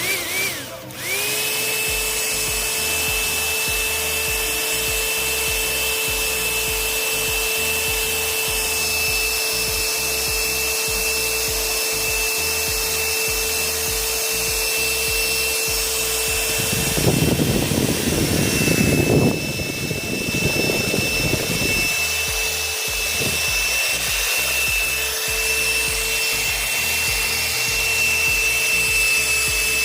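Small high-speed DC motor of a homemade toy jet engine running with a steady high-pitched whine. It drops out briefly at the start and spins back up. For about five seconds past the middle, a louder rough noise joins the whine.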